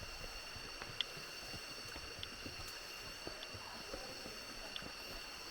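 Steady tropical forest insect chorus, a high drone held at several pitches at once, with irregular soft footsteps on a dirt trail and a few short high chirps about every second or so.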